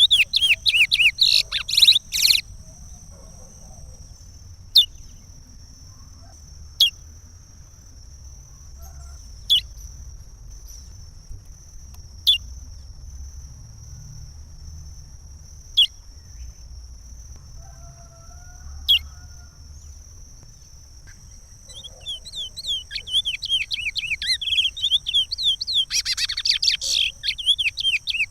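Chestnut-bellied seed finch (curió) singing its Pará regional song. A fast run of whistled phrases breaks off into single sharp notes two to three seconds apart, and the full song starts again about 21 seconds in.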